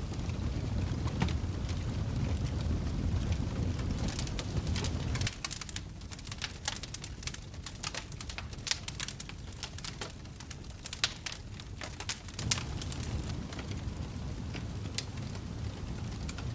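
Wood fire in a fireplace crackling, with sharp pops scattered throughout over a low rumble. The rumble drops away about five seconds in, leaving a dense run of crackles, and comes back near the end.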